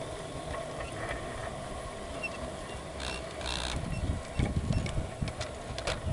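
G-scale (LGB) garden-railway model train running along the track: a steady motor hum with irregular sharp clicks of the wheels over rail joints, and heavier low rumbling from about four seconds in.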